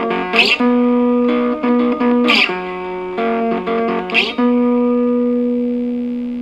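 Guitar music: the instrumental opening of a song, held chords with a sharp strum or slide about every two seconds, and no singing yet.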